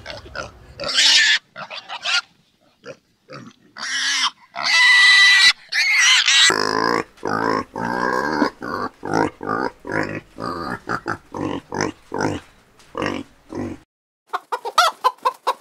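Pigs squealing and grunting: scattered calls with a high squeal in the first half, then a long run of short, quick grunts. Just before the end a hen starts clucking.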